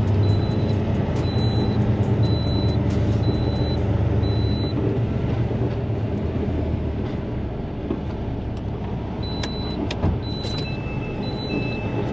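Semi-truck's diesel engine running steadily while the tractor-trailer reverses into a loading dock, with a backup alarm sounding repeated high beeps. The beeping stops for a few seconds midway and returns near the end, joined by a second, lower beep.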